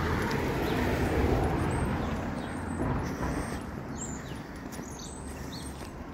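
Outdoor ambience: a vehicle passes, its noise swelling and then fading over the first two seconds, while small birds chirp several times.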